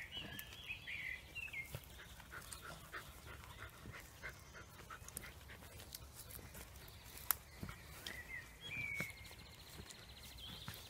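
Cavalier King Charles Spaniel puppies whimpering and squeaking faintly, in short high cries near the start and again near the end, with many light clicks and taps.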